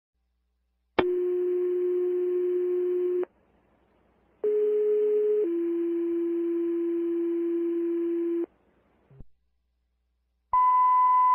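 Fire dispatch paging tones over a scanner radio. A steady tone lasts about two seconds, then a two-tone page: a short higher tone steps down to a longer lower one held about three seconds. A higher beep starts near the end, with a brief radio squelch click between.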